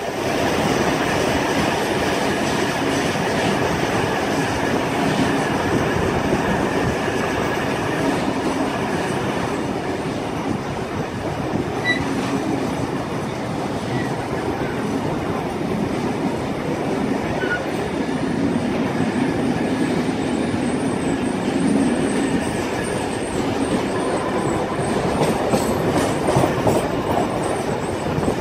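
Wheels of a heritage steam-hauled passenger train rolling on the rails, a steady rumble heard from an open carriage window. Near the end the wheels click sharply over the points of a junction.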